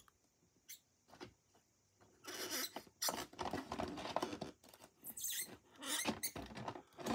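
Hobby knife blade scratching and scoring into toy packaging: short, irregular scrapes that start about two seconds in, after two faint clicks.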